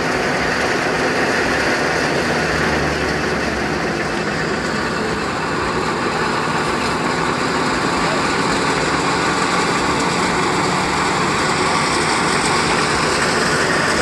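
Wheat thresher running steadily as cut wheat is fed in: a loud, even, unbroken mechanical noise of its engine and threshing drum.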